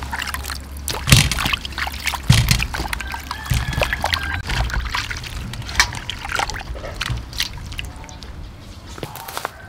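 Water sloshing and splashing in a stainless steel bowl as hands rub and swish vegetables to wash them. Irregular splashes throughout, with two louder knocks about one and two seconds in.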